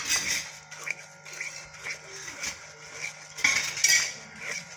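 Wooden spatula scraping and knocking against the sides and bottom of an aluminium pot while stirring a thick besan-and-sugar-syrup mixture, in quick repeated strokes, loudest a little after three seconds in. A faint steady hum runs underneath.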